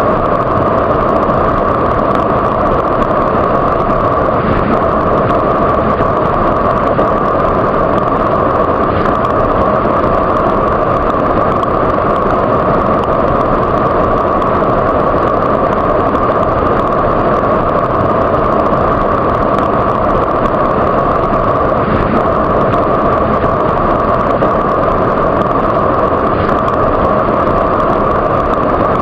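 Waterfall: a loud, steady rush of falling water that never changes, with little hiss on top.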